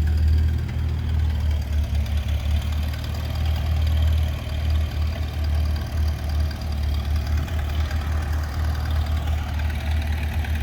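An engine idling steadily, with a strong low rumble.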